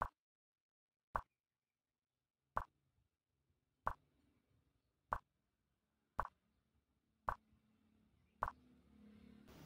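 Chess program's move sound effect: a short click as each piece is placed on the board, about eight of them, one every second or so.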